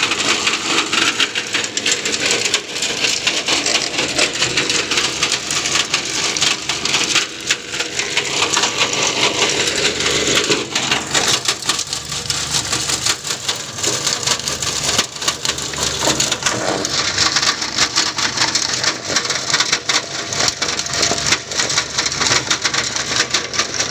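Cocopeat grinding machine running and shredding material, a loud, continuous dense crackling grind.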